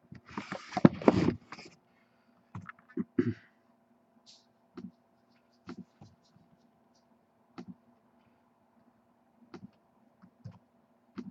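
A short rustling burst near the start, then scattered single clicks and taps every second or two, like computer keyboard and mouse clicks.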